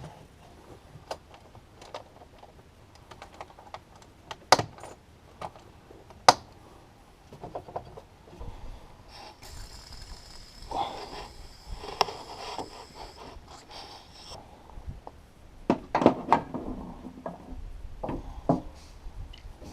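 Hand tool clicking and clinking against air filter housing parts, with sharp knocks about four and six seconds in, a stretch of rattling and scraping in the middle, and more clatter near the end.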